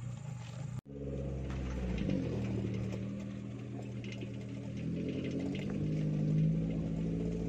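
Suzuki Jimny's engine running steadily as the small 4x4 drives along a dirt track, its note rising a little about six seconds in.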